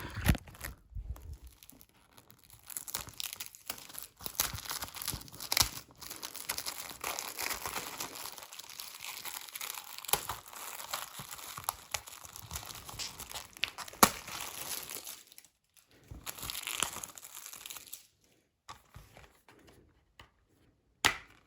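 Plastic shrink-wrap being torn and peeled off a Blu-ray case, crinkling for most of the time, with a few sharp clicks along the way; it thins out to occasional faint handling near the end.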